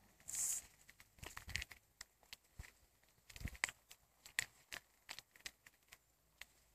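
European badger chewing apples: irregular crisp crunches and clicks, a few a second, thinning out near the end, with a brief hiss just after the start.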